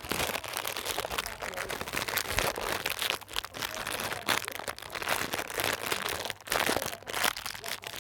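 Blind-box packaging wrapper being handled and opened, crinkling and crackling without a break, with louder bursts of crinkle about halfway through and again near the end.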